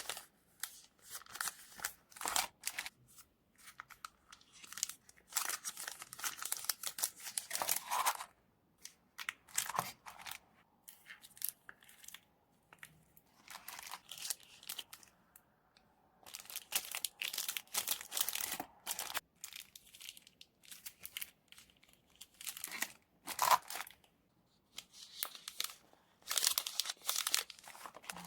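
Washi tape and paper being handled for journaling: tape peeled and torn, with paper crinkling. It comes in irregular bursts of tearing and rustling, a second or two each, with short pauses between.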